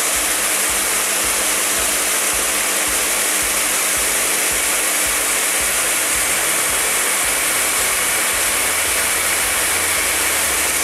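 GEPETTO seed treater running, its spinning disc tumbling a batch of slurry-coated soybeans inside the drum. A steady whirring rush with a low pulse repeating a few times a second.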